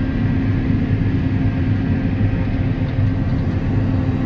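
Engine running steadily, a constant low hum with no change in speed.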